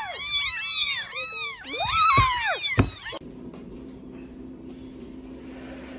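Four young kittens meowing all at once, many high calls overlapping, with a single knock near the end of the calling. About three seconds in the meowing cuts off abruptly and only a faint low steady hum remains.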